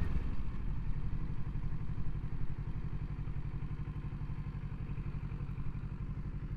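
Kawasaki Ninja 650 parallel-twin engine running at low revs with an even, steady pulse as the motorcycle slows towards a stop; the road and wind noise eases off in the first second or two.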